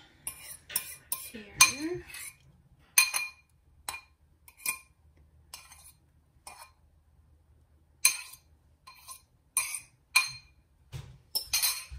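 A metal fork clinking and scraping against bowls as mashed banana is scraped off it into a stainless steel mixing bowl: irregular sharp clinks and taps with a short metallic ring, sparser in the middle.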